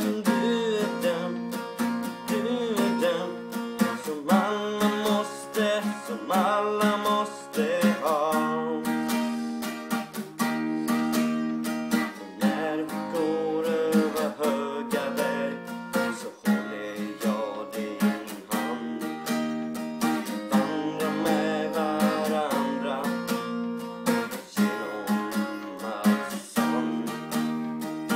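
Acoustic guitar, capoed, strummed in a steady rhythm with the chords changing every second or two.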